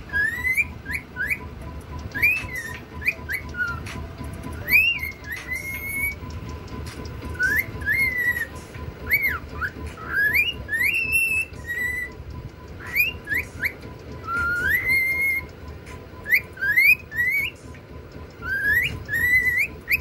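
Cockatiel whistling its song: a string of short rising whistled notes and a few held ones, in phrases with brief pauses between.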